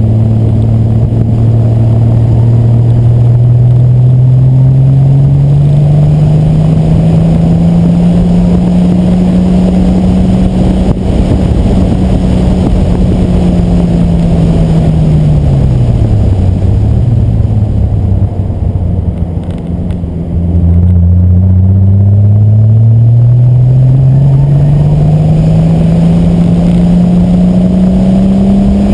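Car engine under load: its note climbs slowly, holds, then drops away as the throttle is lifted about halfway through. After a brief quieter spell it climbs steadily again.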